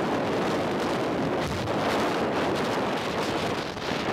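Strong wind blowing across the microphone: a steady, dense rush of noise with no breaks.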